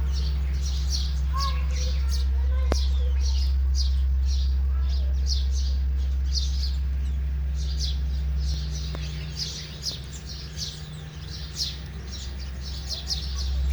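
House sparrows chirping over and over in quick short notes. Under them runs a steady low hum, which drops away about two-thirds of the way in and returns near the end.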